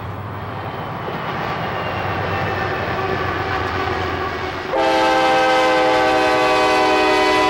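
Steady rumble of a diesel freight locomotive's cab underway, then about five seconds in the locomotive's multi-chime air horn sounds one long steady blast.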